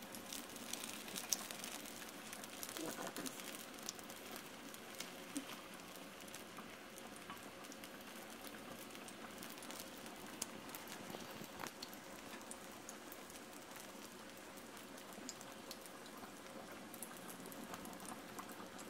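Egg-battered chiles rellenos frying in hot oil in a skillet: a faint, steady sizzle with many small scattered pops and crackles.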